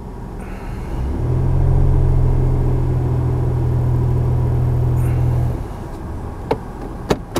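Mitsubishi Mirage G4's 1.2-litre three-cylinder engine idling with the CVT selector in L, circulating freshly changed CVT fluid. About a second in, a louder steady low hum sets in and cuts off abruptly a few seconds later. A few sharp clicks come near the end.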